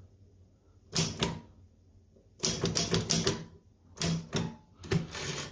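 L.C. Smith manual typewriter: the carriage is tabbed to the tens-digit stop of the decimal tabulator and keys are struck, giving sharp clacks in four short clusters with quiet gaps between.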